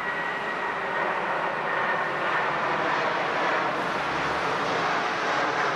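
Jet airplane flying over: a steady roar with a high whine that fades, cutting off suddenly near the end.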